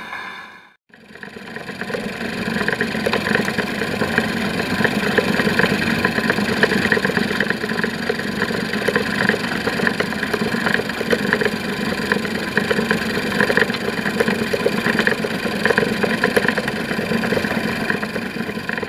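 The last of a banjo 78 record fades out within the first second. Then a wind-up gramophone's clockwork spring motor runs on its own: a steady whirring of the spinning governor and meshing gears, with a fine, rapid ticking.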